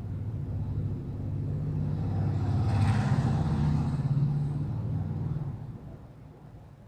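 A motor vehicle passing by: a low engine rumble that swells to its loudest about three seconds in and fades away by about six seconds.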